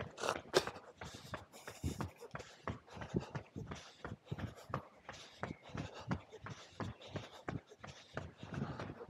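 Footfalls of runners passing on the road: quick, irregular shoe strikes, several a second, from many feet at once.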